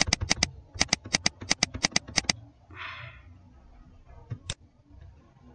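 Computer mouse button clicked rapidly, a quick run of sharp clicks over the first two seconds or so, then two more clicks a couple of seconds later, with a brief soft hiss in between.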